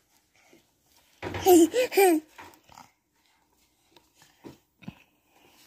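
A toddler's loud, wavering vocal outburst about a second in, lasting about a second, followed by a few faint clicks and mouth noises.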